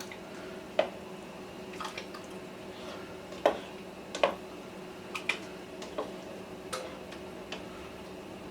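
About ten irregular light clicks and taps of kitchen utensils against cookware, over a steady low hum.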